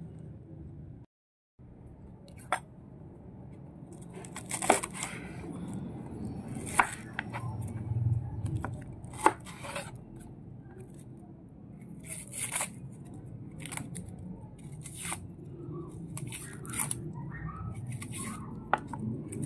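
Kitchen handling sounds: scattered sharp clicks and knocks with bursts of rustling and tearing, as when food and utensils are handled during preparation.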